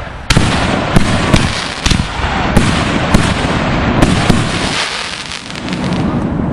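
Consumer fireworks going off: a fast run of sharp bangs with dense crackling between them, easing off in the last second or so.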